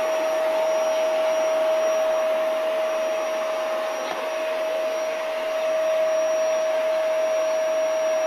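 Vacuum cleaner running steadily: an even rush of air with a constant whine through it.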